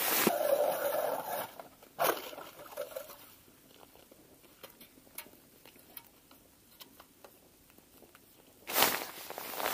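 Close rustling and scraping handling noise for the first second and a half, a sharp click about two seconds in, then faint scattered ticks, and another loud rustling scrape near the end.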